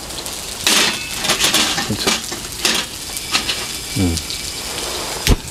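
Battered pollock pancakes sizzling in hot oil in a frying pan, with several crackling flare-ups in the first three seconds. A single sharp knock near the end.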